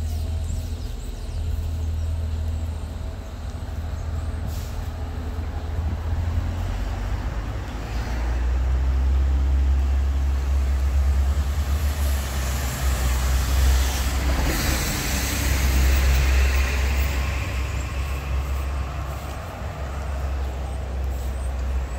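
City street traffic: a steady low rumble of vehicles with cars going past, the loudest one passing a little after halfway.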